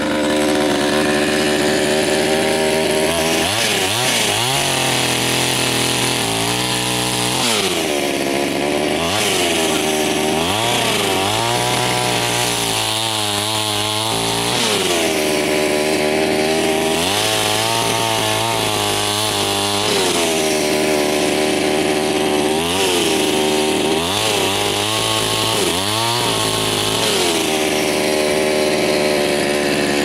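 Gasoline chainsaw running and cutting a log into firewood rounds: between its steady idle, the engine is revved up again and again, each cut heard as a rise and fall in engine pitch every two to three seconds.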